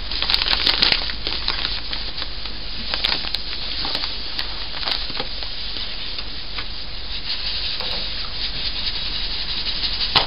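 Dry yellow cornmeal pouring from a bag into a stainless steel stock pot of hot water, a steady grainy hiss. Small clicks and scrapes come from the bag and a spoon stirring the meal in.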